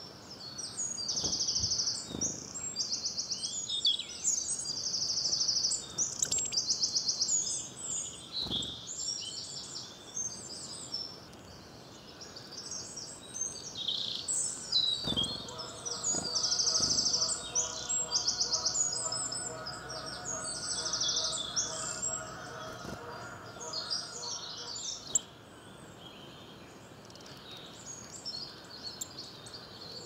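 Woodland songbirds singing and calling, many high chirps overlapping, with short rapid trills repeated every second or two.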